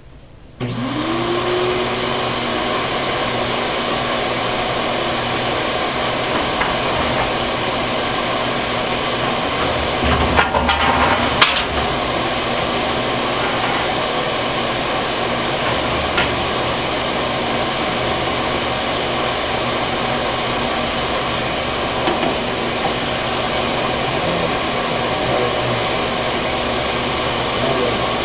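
Dust collector switched on, its motor whining up to speed about half a second in, then running with a loud, steady rushing noise. A brief louder stretch with a few sharp knocks comes near the middle.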